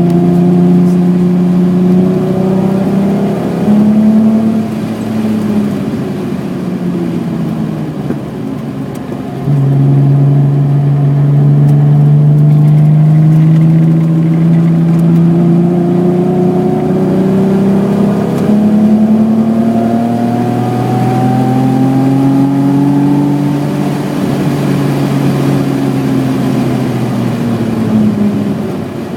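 1986 BMW E28's 3.6-litre straight-six engine being driven hard on track, its pitch rising and falling as it revs up and backs off. It gets louder about nine seconds in, climbs steadily through the second half and eases off near the end.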